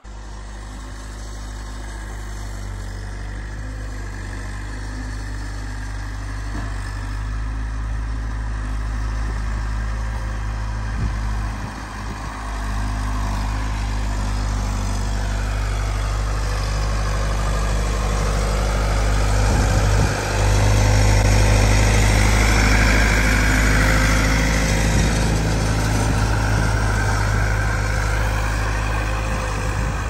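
Bobcat M970 skid steer engine running as the machine pushes deep snow with its bucket. It grows louder over the first twenty or so seconds, and its pitch swings up and down in the second half as it works.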